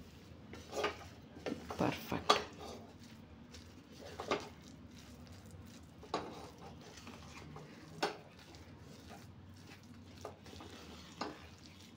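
Wooden ladle stirring and mashing cooked rice and moong dal inside a steel pressure cooker. It makes irregular soft knocks and scrapes against the pot's side and bottom every second or two.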